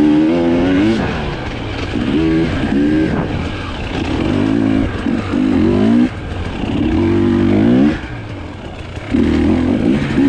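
Husqvarna TE 300i two-stroke enduro motorcycle engine revving up and down in repeated bursts of throttle, dropping off sharply about six and again about eight seconds in.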